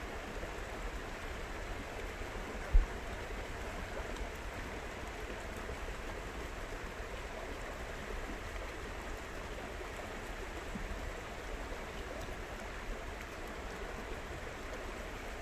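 Steady rushing of a flowing stream, an even wash of water noise. A single brief low thump about three seconds in.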